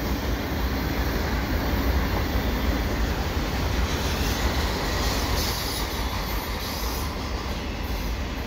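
A CN freight train's enclosed autorack cars rolling past at speed: a steady rumble of steel wheels on rail.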